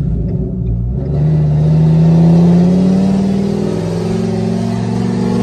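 Pickup truck engine accelerating under load while towing a trailer, heard from inside the cab: a loud drone that rises steadily in pitch from about a second in, dips briefly, then climbs again.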